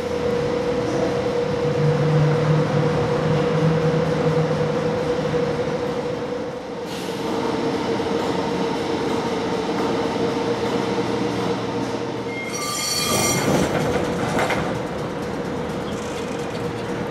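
Melbourne W-class trams with a steady hum, and a brief high-pitched ringing tone with a rumble beneath it about three quarters of the way through.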